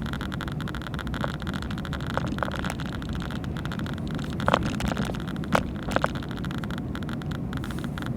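Car driving, heard from inside the cabin: a steady engine and road rumble, with a few short clicks or knocks midway.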